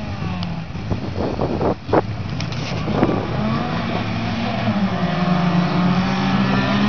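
Several touring-class autocross cars over 1600 cc idling and revving on the start line, with a few knocks in the first two seconds. From about five seconds in the engines rise in pitch and grow louder as the cars accelerate away at the start.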